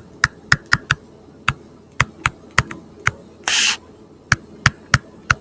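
Pen stylus tip tapping and clicking against a tablet screen while handwriting: irregular sharp clicks, about two or three a second, with one short hiss about three and a half seconds in.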